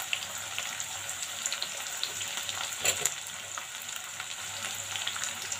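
Chopped onion frying in hot mustard oil in an iron kadhai: a steady sizzle with small crackles, and one louder click about three seconds in.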